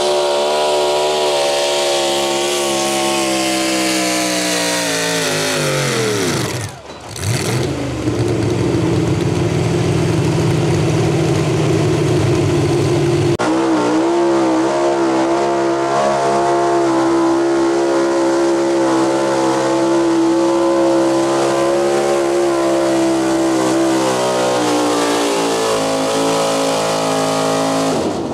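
Pro stock pulling trucks' V8 engines at full throttle under load. The first engine's pitch sinks steadily as it is dragged down and then drops away abruptly about seven seconds in. After a cut, a second truck's engine screams at high, steady revs and sags lower near the end.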